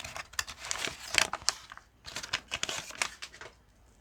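Wax-paper wrapper of a trading-card pack crinkling and rustling in the hands, in quick crackly bursts that die down about three and a half seconds in.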